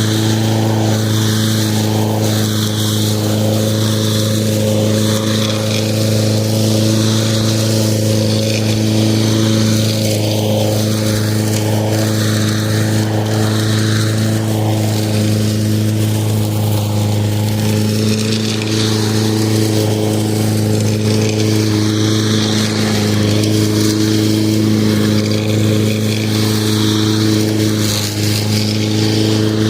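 Lawn mower running steadily at constant speed, a steady even hum with no change in pitch.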